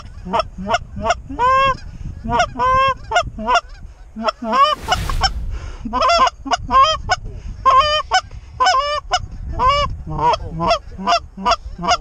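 Goose honking: a rapid, unbroken run of loud honks and clucks, several a second, with a short rush of wind noise about five seconds in.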